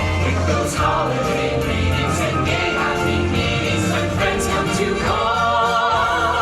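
Holiday show music with a choir singing over a steady bass line; the voices hold long notes with vibrato near the end.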